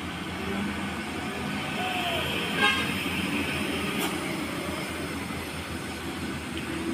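Cars and trucks running at low speed in slow traffic, a steady low engine rumble, with one short horn toot about two and a half seconds in.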